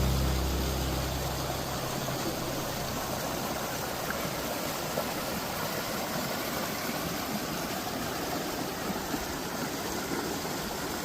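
Rushing mountain creek tumbling over boulders and cascades: a steady rush of water. The last low notes of a piece of music fade out in the first two seconds.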